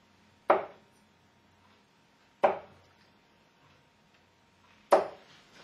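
Three darts striking a Winmau Blade 4 bristle dartboard one after another, about two seconds apart, each a sharp thud.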